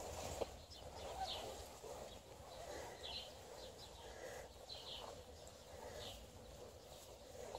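Faint outdoor ambience with a handful of short, high bird chirps every second or two, over a soft rustle of footsteps through grass that is strongest at the start.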